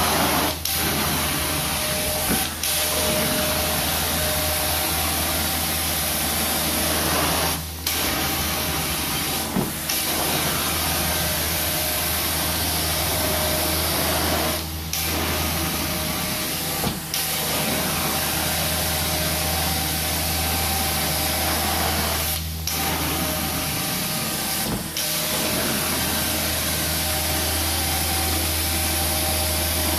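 Carpet extraction vacuum pulling water from wet carpet and pad through a water claw sub-surface tool: a steady rushing suction with a low hum under it. The sound dips briefly, mostly in pairs about two seconds apart, every seven seconds or so, as the tool is worked across the carpet.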